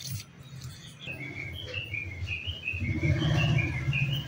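A bird chirping: a quick, regular run of short high notes that hop up and down between a few pitches, starting about a second in. Under it is a steady low hum that grows louder about three seconds in.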